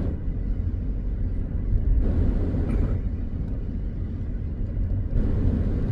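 Steady low rumble of wind buffeting the microphone outdoors, with a faint hiss swelling twice.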